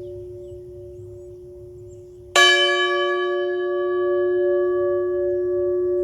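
A bell still ringing from an earlier stroke, struck again once about two and a half seconds in. The fresh tone rings on with many overtones and a slow pulsing waver.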